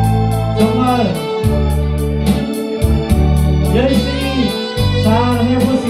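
Trot backing track playing: an electronic organ-style keyboard melody with a wavering, sliding tone over sustained bass and a steady drum-machine beat with even hi-hat ticks.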